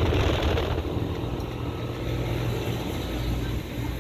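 Air-conditioning units running: a steady low compressor hum under the rushing noise of the fans.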